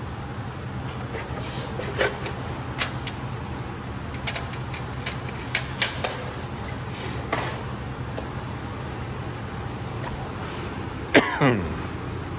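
Steady hum of a shop fan under a scattered run of light clicks and knocks as tools and a plastic case are handled. About eleven seconds in comes one loud, short scraping sound that falls quickly in pitch.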